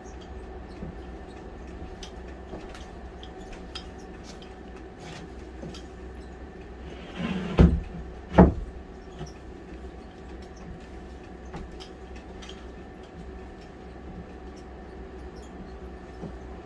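A 3/4-inch plywood subfloor sheet over wooden floor joists scrapes briefly, then lands or is knocked down with two loud wooden thumps under a second apart, over a steady low hum.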